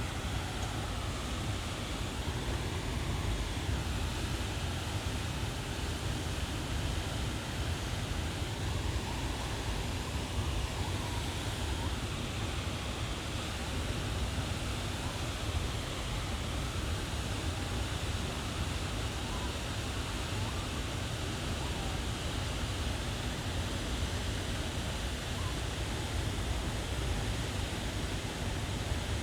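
Waterfall rushing, a steady, unbroken noise of falling water.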